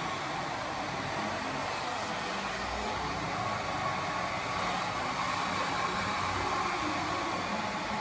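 Handheld hair dryer blowing steadily at a wig's front hairline under an elastic band, to dry and set the lace: an even rush of air with a faint high motor whine.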